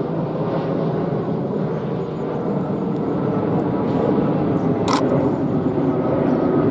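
Boeing 787-8's Rolls-Royce Trent 1000 turbofans on landing approach: a steady jet rumble that grows louder as the airliner nears. A single camera shutter click about five seconds in.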